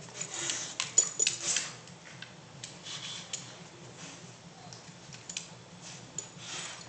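A dog rubbing its face and head over a dryer sheet on a tile floor: rustling and scuffing in bursts, heaviest in the first second and a half, again around three seconds in and near the end, with a few sharp clicks.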